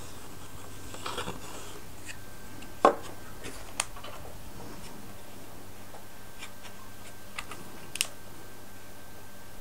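A few light taps and clicks of small plywood model parts and a plastic glue bottle being handled on a tabletop, the sharpest about three seconds in.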